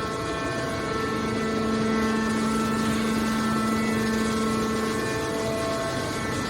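Automatic aluminium can baler's hydraulic power unit running: a steady hum with a constant pitched whine over machine noise.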